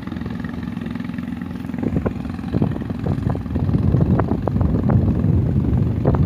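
Small boat engine running steadily. From about two seconds in, louder wind buffeting and gusting on the microphone rises over it.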